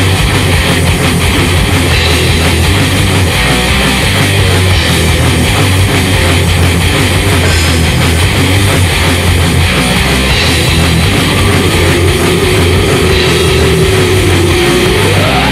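Heavy metal band recording: distorted electric guitars and a drum kit playing at full loudness. In the last few seconds a held note slides upward.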